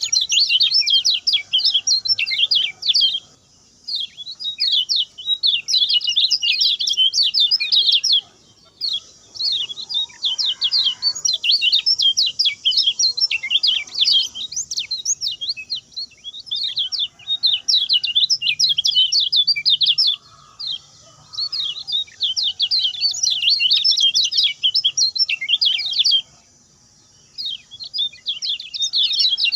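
Common iora singing its fast, short-phrased song: rapid runs of high chirps lasting two to five seconds each, with short pauses between them.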